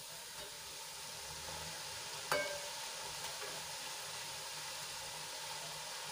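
Thick gram-flour sev sizzling in hot oil in a steel kadai, a steady hiss, with one sharp metallic clink about two seconds in from the slotted spoon turning it.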